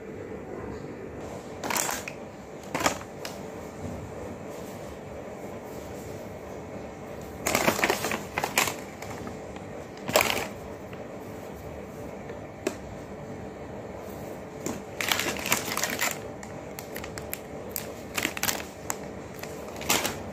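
Short bursts of rustling and rubbing as a thin baby wet wipe is handled and wiped across a plastic drawer front, about seven times, over a steady low hum.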